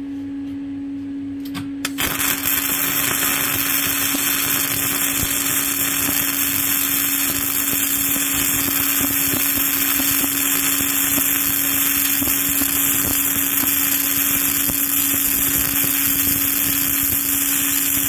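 Self-shielded flux-core arc welding with 5/64-inch Lincoln NR-211 wire: the arc strikes about two seconds in and then crackles steadily, over a constant hum.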